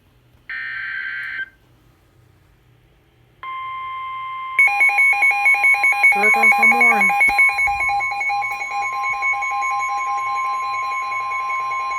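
Emergency Alert System warning tones: a one-second electronic burst, then a steady long tone starting about three and a half seconds in. About a second later a loud, rapidly pulsing alarm tone joins it and keeps going.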